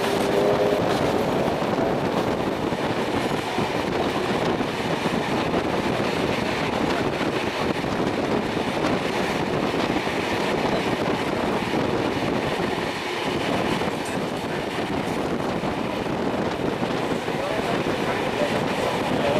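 Passenger carriage of a steam-hauled heritage train running on the track as it pulls out of a station: a steady rumble and rattle of wheels on rail and carriage body, heard through an open carriage window.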